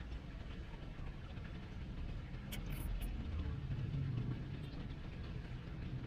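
Low background rumble that swells for a couple of seconds in the middle, with a few faint clicks.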